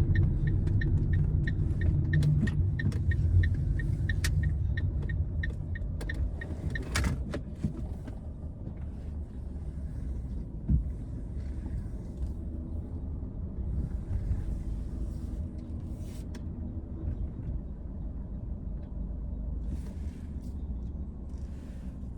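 Car cabin with steady engine and road rumble, getting quieter as the car slows. A turn-signal indicator ticks evenly, about two to three ticks a second, and stops about seven seconds in.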